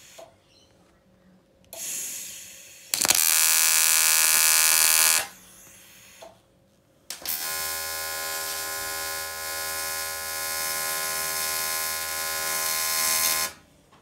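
TIG welding arc on an aluminium boat hull buzzing in three bursts: a short softer one about two seconds in, a loud one of about two seconds, then a long steady run of about six seconds that cuts off near the end. The welder is filling a corrosion pinhole in the hull.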